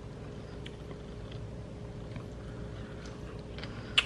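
Steady low room hum with a few faint clicks, and one sharp click just before the end.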